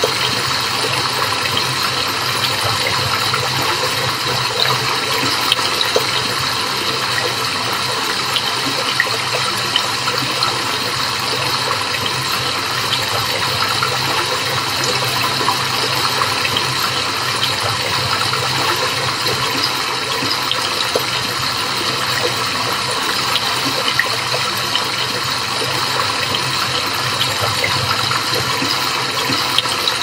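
Water gushing and bubbling steadily, with a scatter of small pops and ticks.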